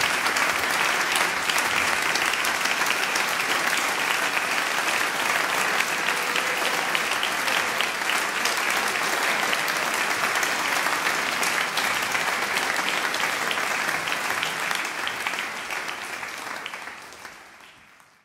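Concert audience applauding steadily, many hands clapping together, fading out over the last couple of seconds.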